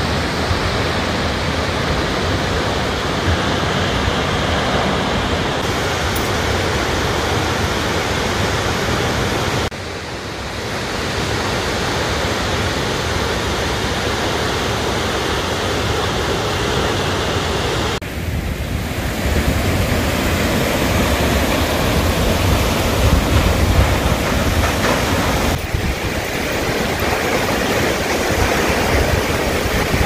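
Shōmyō Falls, a very tall waterfall, pouring down: a steady, loud rush of falling water and spray. The sound changes abruptly about 10, 18 and 26 seconds in.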